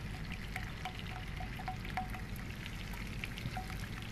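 Cooking cream pouring from a carton into a saucepan of thick white sauce while a silicone spatula stirs and scrapes it, with scattered light clicks against the pan over a steady low hum.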